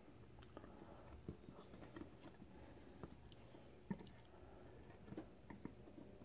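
Near silence with a few faint clicks and creaks from an 8-32 tap being turned by hand, cutting threads into a hole in a thin metal shroud.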